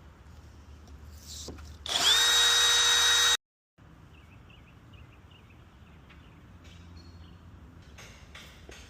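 Power tool motor spinning up and running at a steady high pitch for about a second and a half, then cutting off abruptly.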